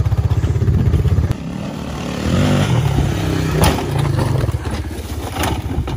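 Honda FourTrax ATV's single-cylinder engine running with a steady pulsing note that drops away about a second in as the riderless quad rolls down the dirt bank. Two sharp knocks, near the middle and near the end, as it tips over on the slope.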